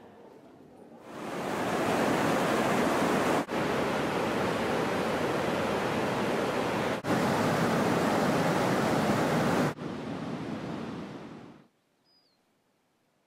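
High water rushing over a river weir: a loud, steady rush of white water that starts about a second in, drops out briefly three times, and fades away near the end.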